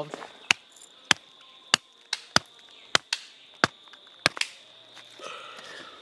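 A stinking toe pod's hard woody shell being cracked by striking it with a rock against a stone: about ten sharp knocks at an uneven pace, some coming in quick pairs.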